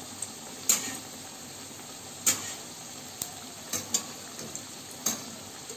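Folded square of maida dough deep-frying in hot oil on a low flame, a steady sizzle. A slotted metal spatula clicks sharply against the pan several times.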